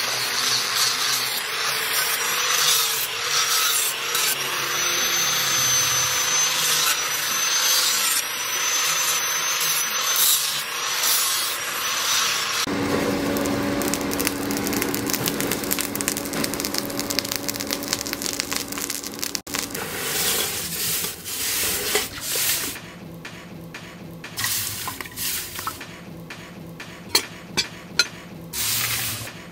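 Angle grinder with an abrasive disc grinding a leaf-spring steel knife blade: a steady grinding hiss with a high whine. About thirteen seconds in it cuts to a charcoal forge with a steady low hum. From about twenty seconds on come irregular splashes as the blade is worked in a water trough, with a few sharp ones near the end.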